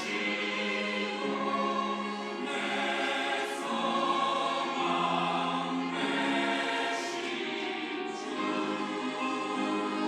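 Mixed church choir of men's and women's voices singing a sacred anthem together, in held chords that change every second or two.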